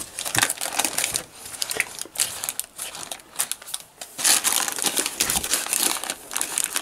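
Baking paper crinkling and rustling as hands fold and roll it around a bacon-wrapped meat roll, with a louder stretch of crackling about four seconds in.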